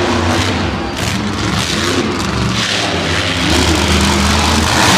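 Monster truck engine running loud and revving, its pitch climbing about three and a half seconds in.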